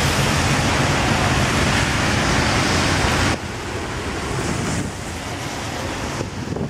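Cars driving past on a rain-soaked road, their tyres hissing on the wet surface. The noise drops suddenly about three seconds in and again near the end.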